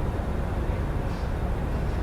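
Steady low rumble of city traffic at night, heard through an open window, with two faint, brief high sounds about a second in and near the end.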